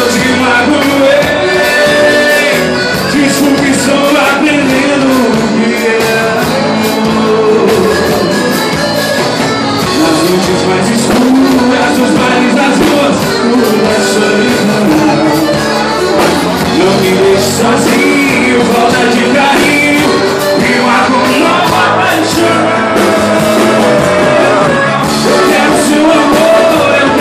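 Live sertanejo band playing loudly with a singer's voice carrying the melody.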